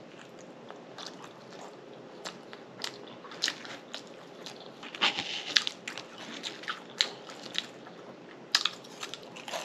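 A person eating close to the microphone: chewing with lip smacks and sharp crunches at uneven intervals, the loudest about five seconds in and again near the end.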